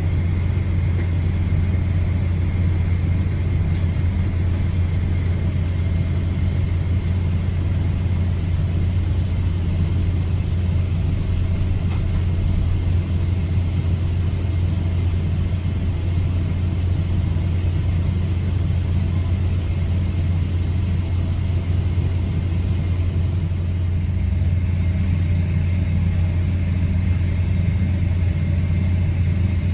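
Boeing 777-300ER cabin noise heard from a window seat while taxiing: a steady low rumble from the GE90-115B engines at idle thrust, with a thin steady whine above it.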